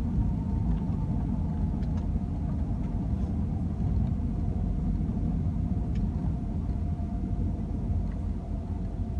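Airbus A320 cabin noise on the landing rollout: a steady low rumble of the wheels on the runway, with a steady engine hum and whine over it, heard from a seat inside the cabin.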